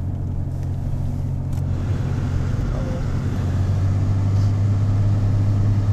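Car engine and road noise heard from inside the cabin while driving: a steady low drone that dips slightly in pitch near the start and rises a little again later.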